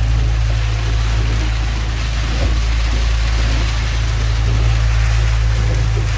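Small pilothouse boat's engine running steadily at idle, heard from inside the cabin, under a steady hiss of storm rain and wind.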